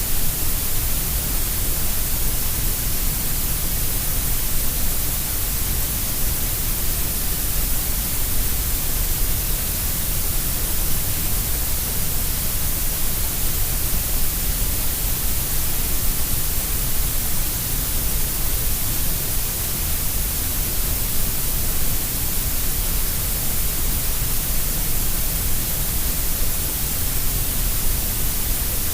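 Steady synthetic grey noise: an even hiss, heavier in the deep rumble and the high treble than in the middle, unchanging throughout.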